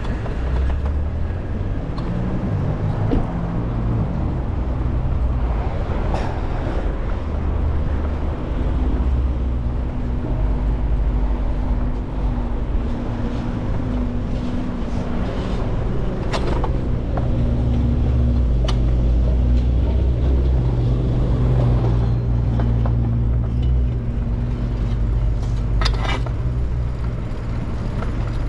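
Steady wind and road noise from a moving bicycle, a deep rumble on the microphone with traffic around it. A faint steady hum runs through the middle, and a few sharp clicks fall about halfway through and near the end.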